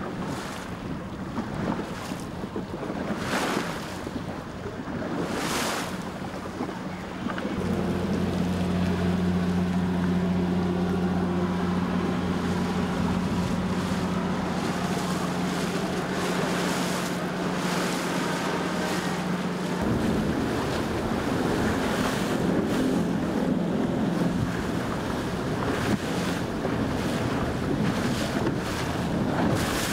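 Wind buffeting the microphone over the sound of the sea. From about eight seconds in, a steady low engine hum joins it and shifts in pitch at about twenty seconds.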